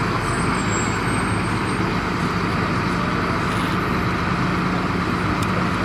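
A parked heavy truck's engine idling with a steady low hum, mixed with road traffic noise.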